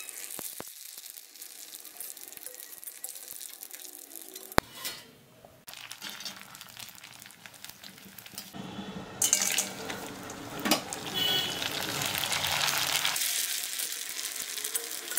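Bori (sun-dried lentil dumplings) frying in hot oil in a pan: a crackling sizzle, with a single sharp knock about four and a half seconds in. The sizzle grows louder and denser from about eight and a half seconds.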